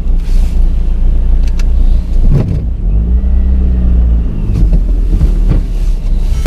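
Small car driving on city streets, heard from inside the cabin: a steady low engine and road rumble, with the engine note rising and then falling back about three seconds in as the car changes speed.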